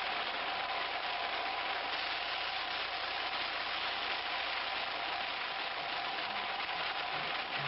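Steady engine drone and rushing air noise inside a light aircraft's cockpit in flight, with rain striking the canopy.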